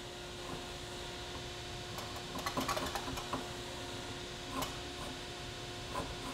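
A drawknife shaving wood from an axe handle clamped in a vise, tapering down the spots where the axe head's eye has compressed the wood. A quick run of short scraping cuts comes about two and a half to three and a half seconds in, with single light cuts before and after, over a steady background hum.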